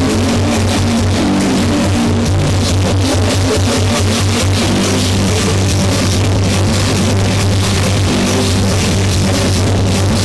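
Rock music with drums and guitar blasting at maximum volume from several JBL portable Bluetooth speakers, loud and dense with a heavy, steady bass.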